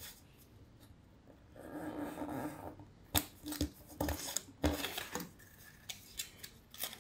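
A paper pattern being handled and cut with a craft knife: a stretch of paper rustling, then a series of sharp clicks and scrapes as the blade cuts slots into the paper.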